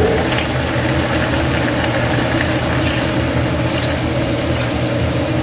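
Octopus simmering in its own juices in a wok, bubbling steadily as soy sauce is poured into the pan, with a steady low hum underneath.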